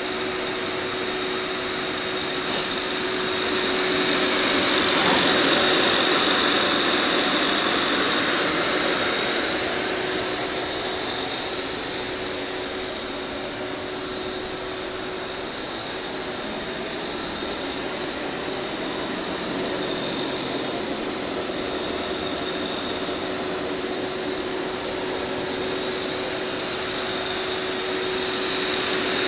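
Honda VTR1000F Superhawk's 996 cc 90-degree V-twin engine idling steadily. It is louder from about four to ten seconds in and again near the end.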